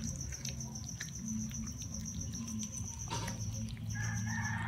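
Night insects chirping in a rapid, even pulse at a high pitch, over a low steady hum.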